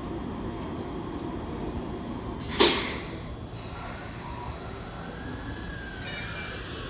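E231 series electric train at a platform: a short, loud burst of air hiss that falls away about two and a half seconds in, then the faint whine of its inverter motor drive rising in pitch as the train starts to pull away.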